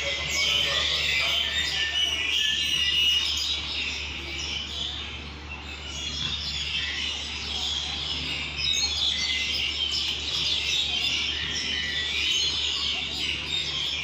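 A crowd of songbirds chirping and calling together, a busy, overlapping chatter of high chirps that thins briefly about five seconds in.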